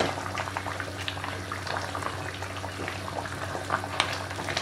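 Thick oxtail and butter bean stew bubbling at a simmer in a stainless steel pot while a plastic spoon stirs it, with scattered small plops and scrapes.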